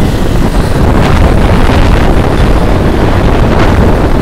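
Heavy wind buffeting on the microphone of a phone carried on a moving motorcycle at highway speed, about 60–70 km/h. Road and engine noise lie under the wind.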